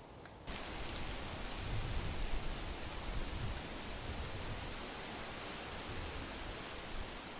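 Wind rushing through the treetops with leaves rustling, a steady hiss that begins abruptly about half a second in, with irregular low gusts buffeting the microphone.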